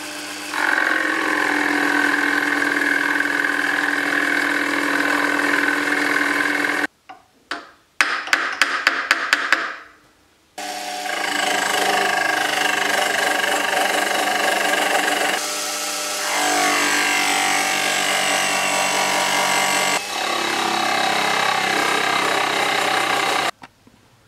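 Small milling machine cutting an aluminium block: a steady cutting whine with a few held tones, then a quick run of sharp ticks about a third of the way in, then a longer cut with a face cutter whose pitch shifts a couple of times before it stops suddenly near the end.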